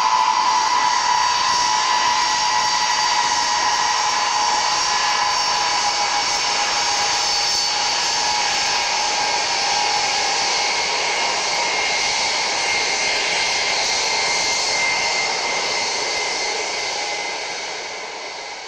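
Ilyushin Il-76 with its four Soloviev D-30KP turbofans running, a high whine over the loud jet rush as the aircraft turns on the runway and heads away. The whine weakens in the first half and the whole sound fades near the end.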